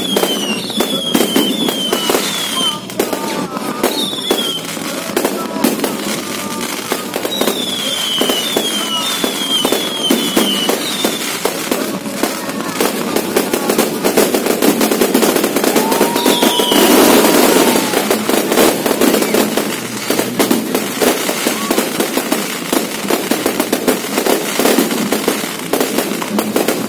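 Aerial fireworks barrage bursting overhead: a dense, continuous crackle of rapid bangs, heaviest about halfway through. Groups of short falling whistles cut through it several times.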